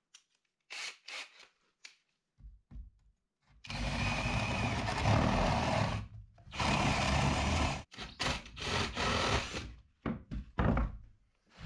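Cordless drill boring into a wooden board: two long runs of a couple of seconds each, then a few short bursts. Light knocks from handling the tool and wood come before it.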